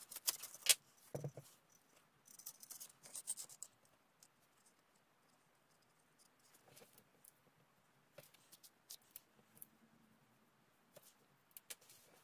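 Faint handling noise of a slotted metal tube in a wooden spring-testing rig: short scrapes and clicks come in scattered clusters, with a dull knock about a second in.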